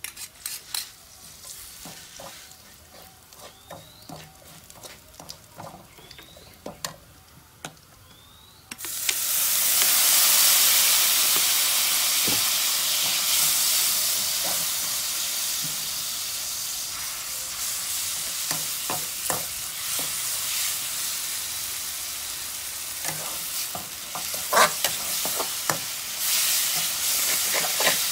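Garlic and then pieces of pork frying in oil in a steel wok, stirred with a metal ladle that taps and scrapes on the pan. A quiet sizzle with ladle clicks turns suddenly into a loud sizzling hiss about nine seconds in, which slowly eases off, with more ladle knocks near the end.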